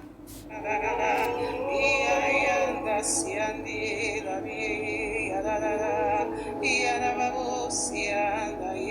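A voice singing a slow, wordless worship melody with strong vibrato, picking up again after a brief dip right at the start.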